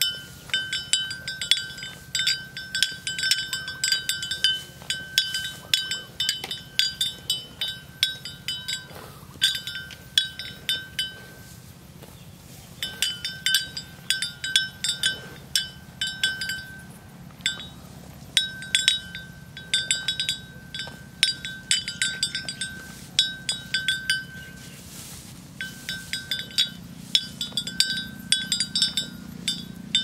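A small bell on a grazing water buffalo clinking in quick, irregular runs as the animal works its head through the grass, with a few short pauses.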